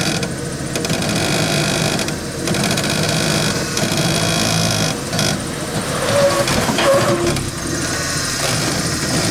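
Ford F-150 pickup's engine running at low speed while the truck crawls over steep slickrock, with a few short higher-pitched squeaks about six to seven seconds in.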